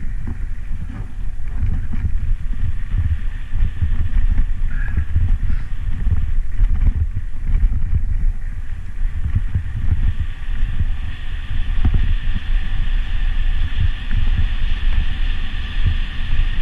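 Wind buffeting a camera microphone while cycling, an uneven low rumble, with a steady higher hiss joining about ten seconds in.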